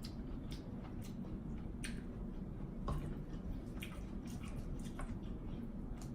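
Close-miked wet eating sounds: lips smacking and sauce-coated seafood squishing as it is chewed, in irregular sticky clicks a few times a second, over a steady low hum.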